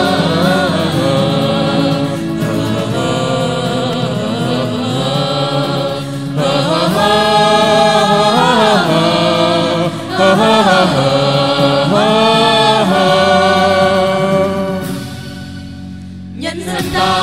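A choir of voices singing together over backing music. The music drops away for a moment near the end, then comes back.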